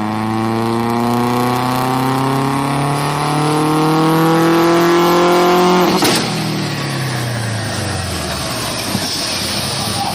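Car engine at high revs, its pitch climbing steadily for about six seconds, then a sudden sharp crack after which the revs fall away into a rough, noisy rumble: an engine letting go after being held at high rpm.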